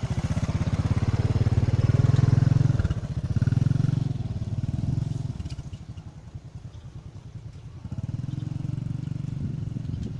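Small motorcycle engine passing close by, its low pulsing note swelling and fading: loudest about two seconds in, again around four seconds, then another rise near the end.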